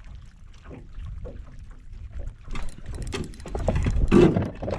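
Water lapping and slapping against a small boat's hull, with wind on the microphone and scattered light knocks. It grows louder about four seconds in.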